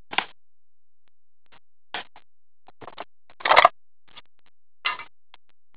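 Trading cards being slid and flipped in hand, a string of short scraping rustles with gaps between; the loudest comes about three and a half seconds in.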